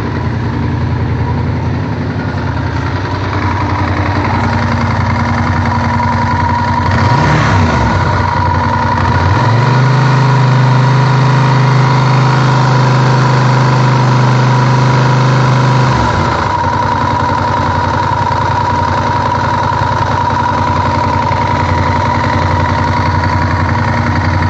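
Honda VTR1000F's V-twin engine idling with a knock, which was traced to worn cam chain tensioners. About seven seconds in it is revved up, held at a steady higher speed for about six seconds, then drops back to idle.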